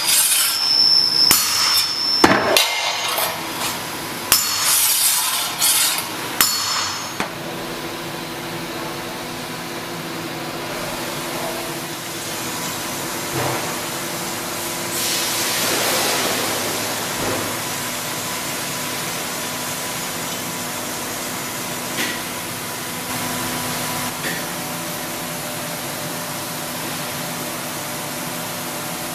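A hand hammer strikes a steel circular saw blade on a steel plate, giving about ten sharp, ringing metallic clanks in the first seven seconds as the blade is straightened. A steady machine hum with a faint tone follows.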